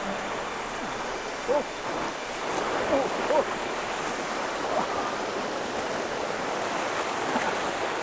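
Whitewater of a rocky jungle stream rushing and cascading over boulders, a steady, dense hiss.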